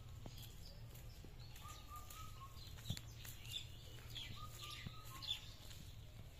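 Birds calling faintly: a short whistled phrase repeated about every three seconds, with a few higher chirps between, over a steady low hum. Two sharp clicks stand out.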